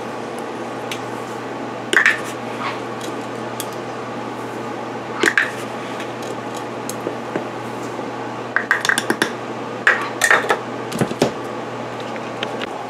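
A measuring scoop clinking and tapping against the pot as sugar is tipped in scoop by scoop: single clinks about 2 and 5 seconds in, then a run of quick taps around 9 and 10 seconds, over a steady background hum.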